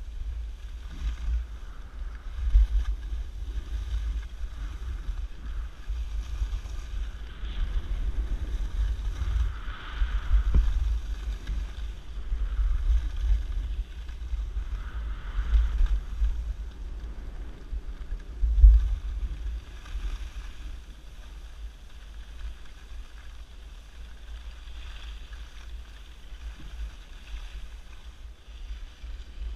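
Wind buffeting an action camera's microphone as the skier goes downhill, gusting throughout with one sharp blast about two thirds of the way in, over a fainter hiss of skis sliding on packed snow that swells a couple of times.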